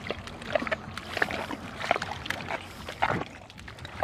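Bare feet squelching and splashing through wet mud in irregular steps.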